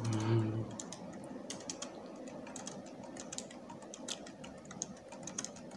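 Typing on a computer keyboard: a quick, irregular run of key clicks as a line of text is typed.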